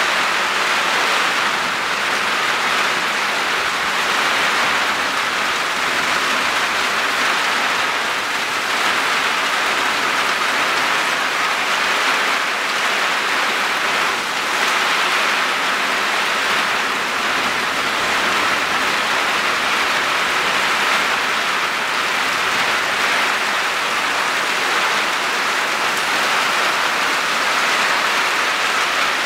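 Heavy summer downpour: a loud, steady hiss of rain pouring down, unbroken throughout.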